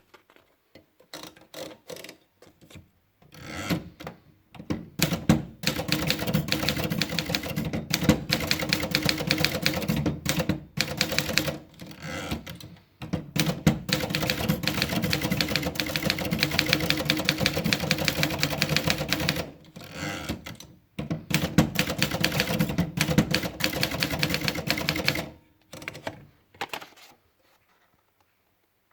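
Remington Idool manual typewriter being typed on. A few scattered key strikes lead into three long runs of fast typing separated by short pauses, then a few last strikes near the end.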